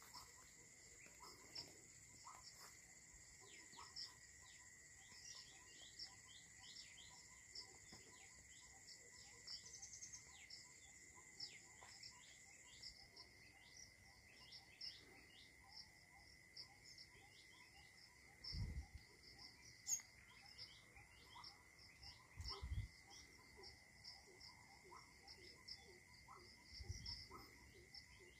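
Faint orchard ambience: insects drone steadily at a high pitch while small birds chirp over and over in quick, falling notes. A higher insect whine cuts out about halfway through, and there are three low thumps near the end.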